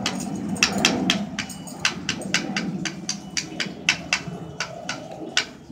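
Tambourine's metal jingles rattling in short, irregular shakes and taps, a few a second, as a baby handles and mouths it.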